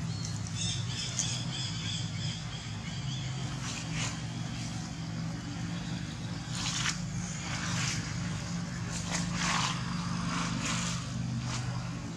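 A steady low hum under several brief, dry rustles and scuffles in leaf litter as young long-tailed macaques tussle on the ground.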